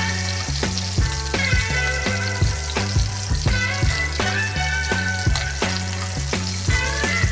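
Chicken thighs sizzling as they fry in hot oil in a pan, under background music with a steady beat and a walking bass line.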